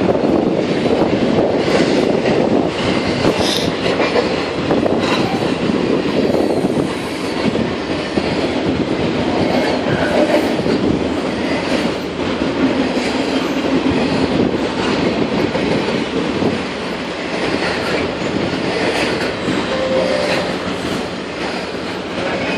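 Double-stack intermodal container freight train rolling past, a steady rumble of its wheels on the rails with faint clicks.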